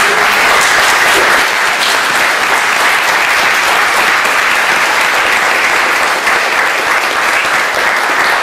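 Audience applauding: many hands clapping at once, steady and loud throughout.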